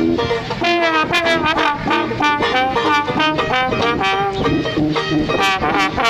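A trombone, banjo and tuba trio playing a lively tune together, brass notes over the banjo's plucked chords and the tuba's bass.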